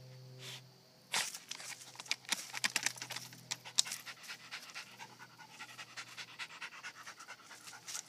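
Havanese dog panting quickly from about a second in, with dry leaves rustling as it moves.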